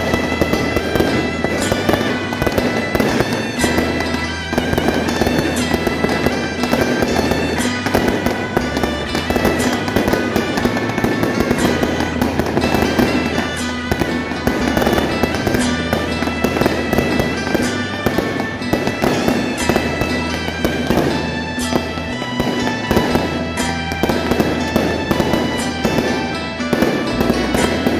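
Electronic firecracker cannons going off in a dense, continuous crackle of rapid bangs, with music playing underneath.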